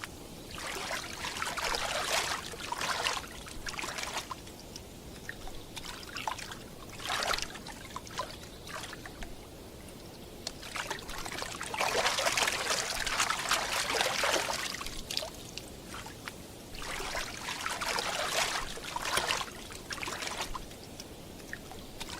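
Water trickling and splashing in irregular spells, the longest and loudest in the middle.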